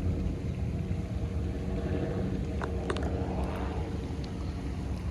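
A steady low engine-like hum with a few faint clicks about halfway through.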